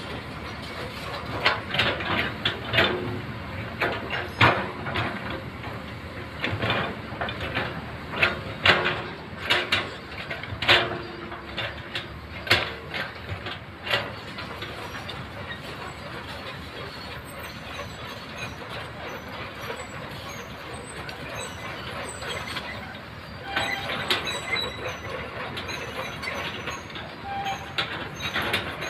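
Hydraulic crawler excavator working in rocky gravel: its engine runs steadily under a string of sharp metallic clanks and rattles, many in the first half, then a steadier stretch before the clatter picks up again near the end.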